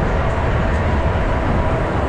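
Steady rumbling noise aboard a swinging pirate-ship ride: the rush of air and the ride's running noise on a wrist-worn action camera's microphone.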